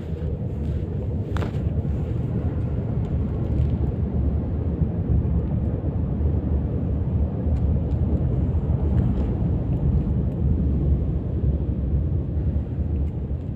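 A steady, dense low rumble, with a faint hiss above it.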